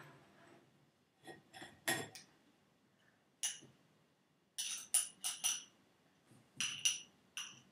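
A spoon clinking against a wire-mesh sieve and a glass bowl while stirring chopped onion mixture through the sieve. The clinks ring briefly, come at irregular intervals, and bunch into quick runs of several about two-thirds of the way through.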